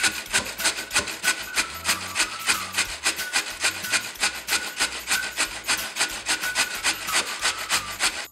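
Raw peeled potato being grated on a stainless steel box grater: quick, even rasping strokes, about five a second.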